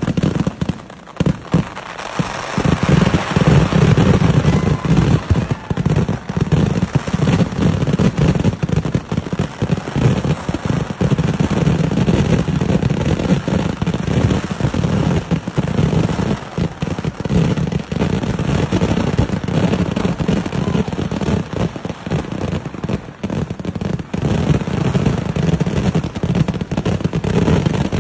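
Kerala temple-festival fireworks (vedikkettu): a dense, unbroken barrage of firework bangs and crackling, dipping briefly about a second in and then building to a loud, continuous volley.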